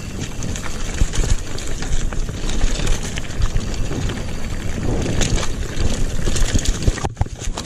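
Mountain bike descending a rough dirt trail: wind buffeting the handlebar-mounted microphone over tyres rolling on dirt and stones, with short rattles and knocks from the bike over bumps. The noise drops briefly near the end.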